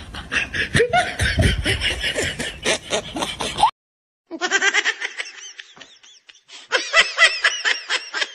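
Rapid snickering laughter in quick short pulses. It breaks off into a moment of silence a little under four seconds in, then a second burst of snickering laughter starts, strongest near the end.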